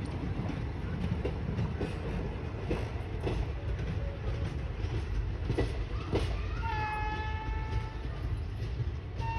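Passenger train coaches rolling over a railway diamond crossing: a steady low rumble with sharp wheel knocks as the wheels hit the crossing's rail gaps, two heavier knocks about five and six seconds in. A high steady tone sounds for about a second some seven seconds in.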